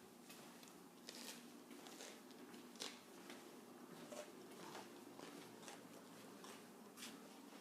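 Faint, scattered crunches and clicks from hard toaster-oven pancakes.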